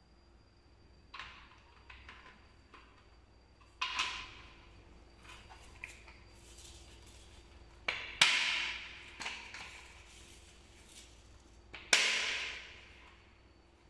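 A few separate knocks and clatters of objects being handled, the louder ones each followed by about a second of rustling or sliding noise; no motor running.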